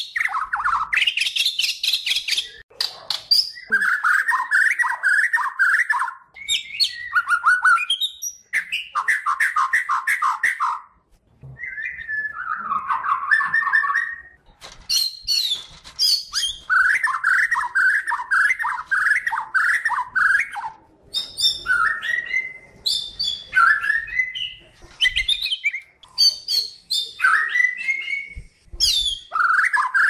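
White-rumped shama (murai batu) of the Kalimantan type singing nonstop, phrase after phrase with only short pauses. Clear rising and falling whistles alternate with fast runs of repeated rattling notes.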